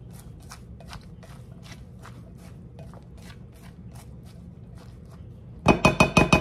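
A spatula stirring salted diced zucchini, onion and bell peppers in a glass mixing bowl, in a steady rhythm of soft scraping strokes, two or three a second. Near the end comes a quick run of loud knocks against the glass bowl that ring out briefly.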